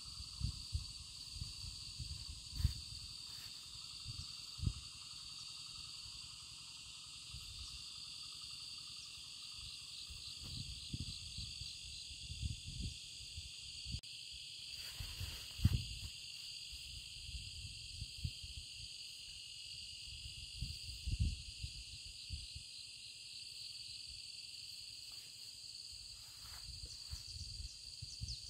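Steady chorus of insects, a continuous high shrill with short pulsing trills now and then. A lower steady drone fades out about halfway through. Scattered low bumps and thumps come and go underneath.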